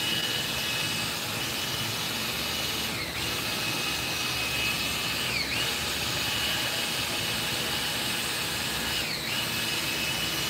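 Cordless drill spinning a paddle mixer through a large bucket of two-part epoxy resin: a steady motor whine that briefly sags in pitch and recovers about three times as the paddle drags in the thick resin.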